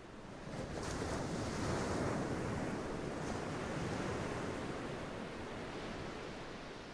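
A swell of rushing, surf-like noise that rises about a second in and slowly fades away.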